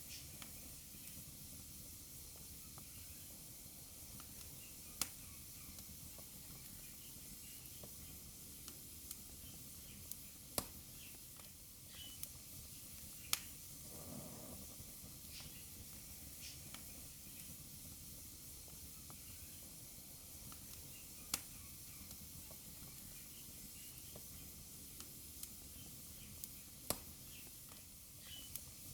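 Wood fire burning in a fireplace: a steady low hiss with irregular sharp crackles and pops, a handful of them loud.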